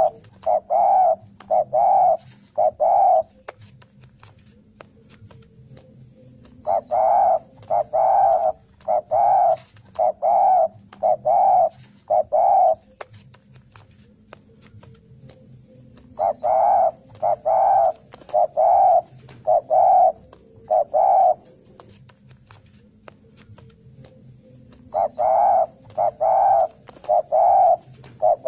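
Spotted dove giving its challenge call (narung): four phrases of coos, mostly in pairs, each phrase lasting several seconds, with pauses of about three to four seconds between them.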